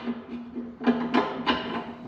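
Metal clanking with a ringing tone, three sharp strikes close together in the second half, as the engine block is rotated over on its engine stand.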